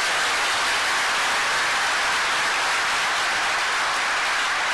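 A large seated audience applauding, a steady, even clapping.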